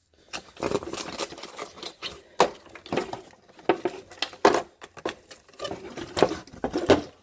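Hands handling plastic refrigerator parts while clearing stuck ice: irregular clicks, taps and scraping, with a few sharper knocks.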